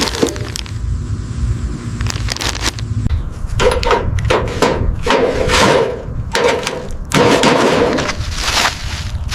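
Hand-tool work on metal bodywork: a few sharp knocks, then from the middle on a run of repeated scraping strokes, each under a second long, over a steady low rumble.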